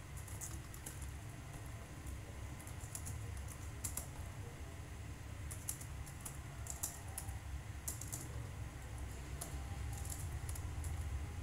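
Typing on a computer keyboard: irregular clusters of quick key clicks over a steady low hum.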